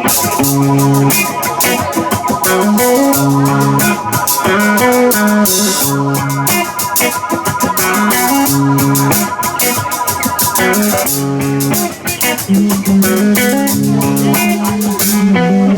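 Live rock band playing an instrumental passage: electric guitar, bass guitar, drum kit and keyboards. A repeating bass line runs under a held high note, with steady cymbal and drum strokes.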